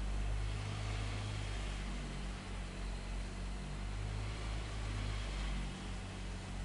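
Engine of heavy road-construction machinery running steadily: a low, even hum with a faint hiss over it.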